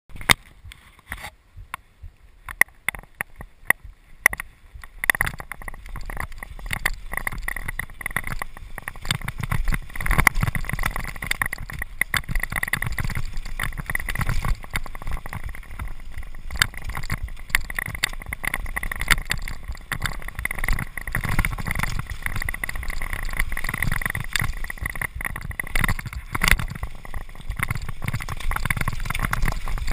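Downhill mountain bike riding down a rough dirt trail, heard from a camera mounted on the bike or rider: a continuous rushing rumble of wind and tyres on dirt, with the frame and parts rattling and knocking over bumps. The first few seconds hold only scattered clicks and knocks before the riding noise takes over about five seconds in.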